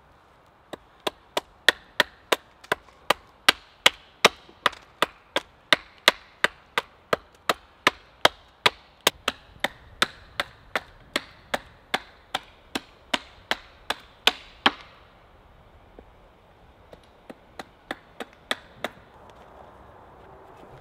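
Hatchet chopping a point onto a wooden stick held against a stump chopping block: a steady run of sharp, splintering chops, nearly three a second, that stops about three-quarters of the way through. A few lighter knocks follow near the end.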